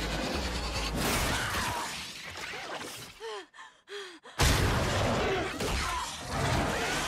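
Film action sound mix of dense crashing effects and score that drops almost to silence about three seconds in, leaving two short falling cries, then slams back in with a sudden loud crash.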